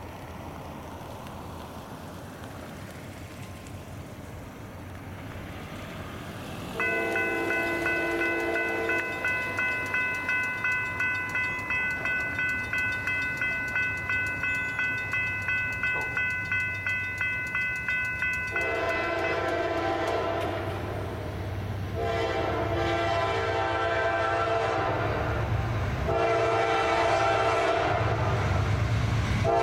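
Railroad crossing warning bell ringing about twice a second as the crossing activates, while an approaching Norfolk Southern freight train led by AC44C6M diesel locomotives blows its horn. The horn gives long blasts, one fainter at first and then several louder ones in the second half, over a low locomotive rumble that grows as the train nears.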